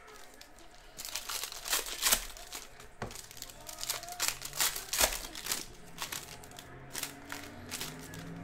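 Foil wrapper of a Panini Prizm trading-card pack being torn open and crumpled by hand: a run of sharp crinkles and rips starting about a second in, loudest around two and five seconds.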